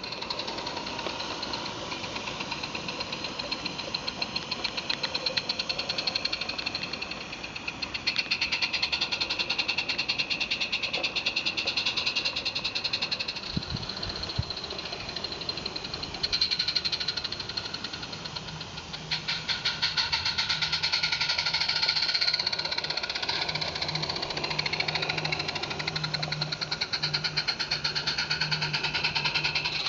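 Roundhouse Jack 0-4-0 live-steam garden-railway locomotive chuffing in a fast, even rhythm as it runs past hauling a train of sand wagons. A low steady hum joins in a little over halfway through.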